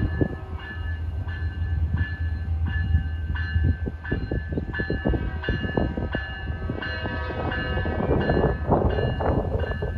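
Siemens Charger diesel-electric locomotive approaching slowly: a steady low engine rumble under a bell ringing over and over, about twice a second. The rolling noise of the wheels on the rails grows louder near the end.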